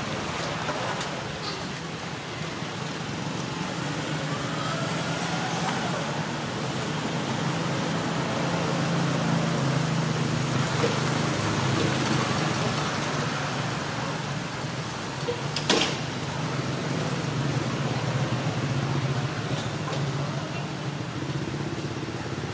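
A steady low drone under a constant outdoor hiss, with one sharp click about two thirds of the way through.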